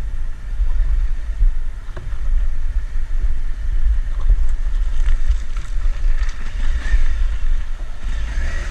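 Wind buffeting the microphone: a loud, uneven low rumble with a faint hiss above it.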